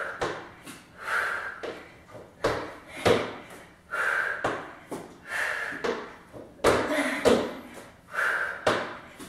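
Feet landing on a wooden floor in a plank with in-out jumps, giving repeated thuds roughly every second, each paired with a sharp, forceful breath.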